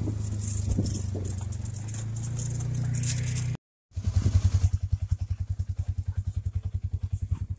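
Polaris side-by-side UTV's engine running steadily while driving a dirt track. The sound cuts out briefly a little past the middle, then comes back as a fast, even putter at low speed.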